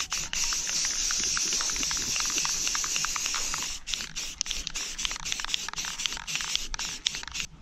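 Rust-Oleum aerosol spray paint can spraying: a steady high hiss for about three and a half seconds that stops abruptly, followed by fainter hiss and small ticks.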